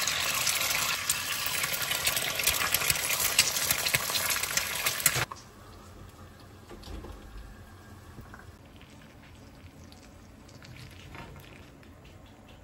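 Kitchen tap running water into the sink, shut off suddenly about five seconds in. Faint small clinks and ticks follow.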